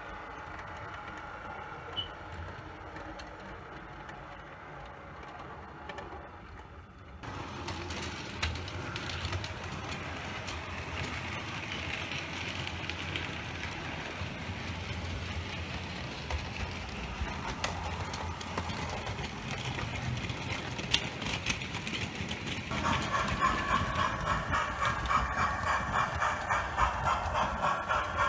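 Model trains running on layout track: a steady hum and rumble of the model motors and wheels on the rails. The sound changes abruptly about seven seconds in, and again near the end, where a louder, evenly pulsing rattle comes in.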